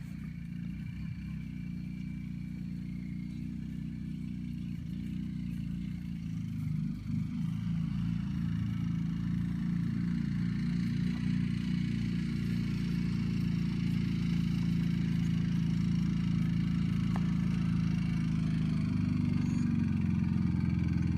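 A motor vehicle's engine running steadily close by, with a low hum that grows gradually louder.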